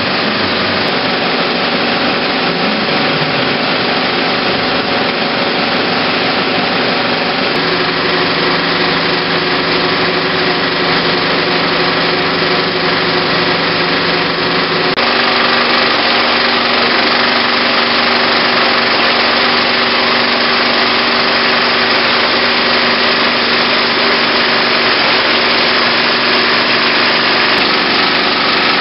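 IMAX Dome 15-perf 70 mm film projector running in its booth: a steady mechanical whir with several held tones. The tone changes abruptly twice, about a quarter and about half way in.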